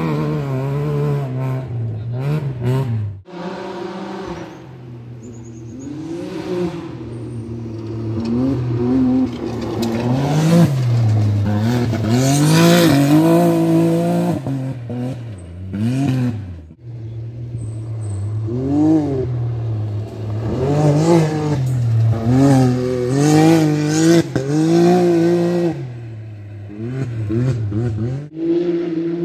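Rally car engines revving hard on a gravel stage, the pitch rising and falling again and again with throttle lifts and gear changes. The sound is loudest a little past the middle.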